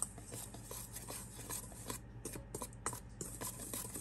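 Wire whisk stirring a dry flour mix in a stainless steel bowl: soft, irregular scraping with light ticks of the wires against the metal.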